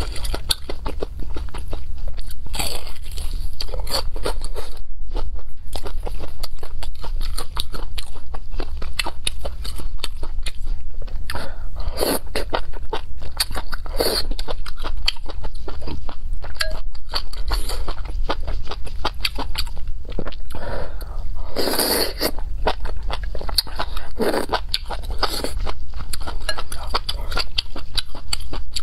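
Close-miked eating: a steady run of crunching bites and chewing, with several louder bites standing out.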